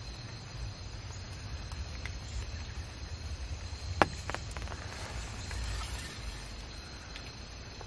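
Quiet outdoor ambience from inside a hunting ground blind: a steady low rumble and a faint, steady high insect-like tone. About halfway through comes one sharp click, then two or three lighter clicks.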